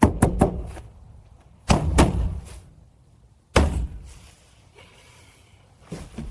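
Heavy pounding on a door: a quick run of about four blows, another run of about four a couple of seconds later, then one single hard bang, each with a short ring in the room.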